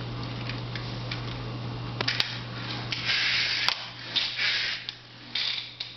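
Small remote-control toy car driven in short bursts, about three of half a second or so each, with a few sharp clicks.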